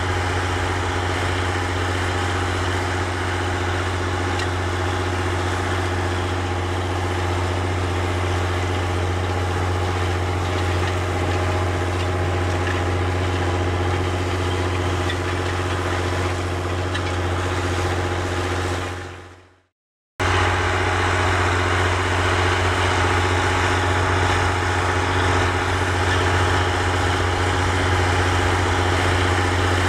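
John Deere 7020's six-cylinder diesel engine running steadily under load as the tractor pulls a disk harrow. The sound fades out about two-thirds of the way in, drops out for half a second, then cuts back in just as steady.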